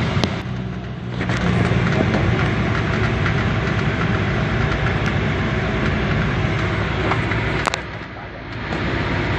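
Light propeller aircraft's engine and propeller running loud and steady, heard from inside the cabin; the sound drops briefly about half a second in and again near the end.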